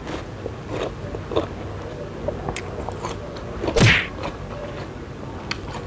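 Close-up chewing and wet mouth sounds of someone eating water apple pieces coated in tamarind chili sambal (rujak jambu air), with small clicks and smacks and one louder bite about four seconds in.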